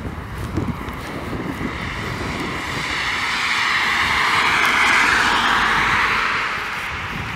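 A car driving past on the road beside the dyke, its tyre and engine noise swelling to a peak about five seconds in and then fading away.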